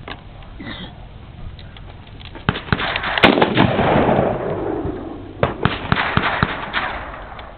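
Rifle fired in two rapid strings of shots about a second apart, the first string the louder, each followed by a rolling echo.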